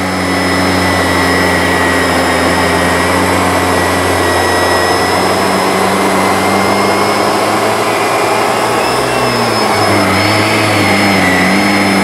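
Bissell PowerLifter Swivel upright vacuum cleaner running steadily while its nozzle is pushed over a mattress: a constant motor hum with a high whine. The pitch shifts slightly about nine seconds in.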